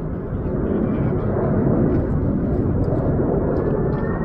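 Jet airliner engines on landing approach: a steady, heavy rumble. A thin high whine comes in near the end and rises slightly in pitch as the aircraft draws closer.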